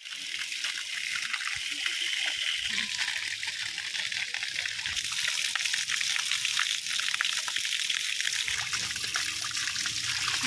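Water gushing steadily from a pipe and splashing onto a stone slab while a plucked chicken is rinsed by hand under the stream.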